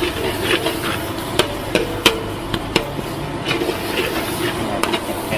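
Metal spatula knocking and scraping against a wok in irregular clanks, several a second, while chicken offal is stir-fried over a steady frying hiss.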